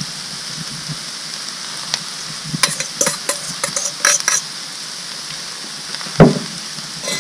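Onions, peppers and mushrooms sizzling steadily in butter on a Blackstone flat-top griddle. A metal spatula clinks and scrapes against the griddle in a quick cluster about two and a half to four and a half seconds in, and one louder scrape comes about six seconds in.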